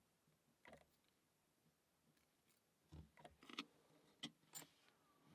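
Near silence with a few faint small clicks and taps, one about a second in and a cluster around three to four and a half seconds in: tiny metal pins and springs from a cross lock cylinder being handled and set down.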